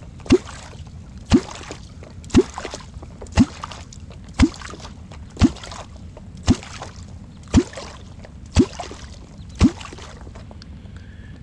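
A kvok, the catfish call, worked on the water about once a second: ten short water gulps. Each has a quick upward glide in pitch. This is the rhythmic kvoking used to draw a catfish up toward the bait.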